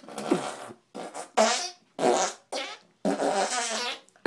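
Fake fart noises made by blowing raspberries with the mouth pressed against the forearm: a string of about six short spluttering blasts, the last one longer, about a second.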